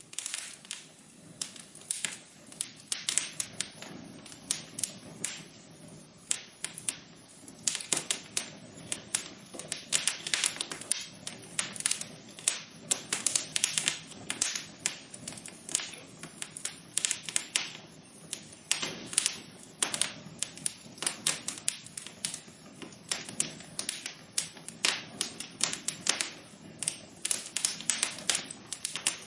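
Wood fire crackling in a fireplace: a dense, irregular run of sharp pops and snaps over a faint low rumble of the burning logs.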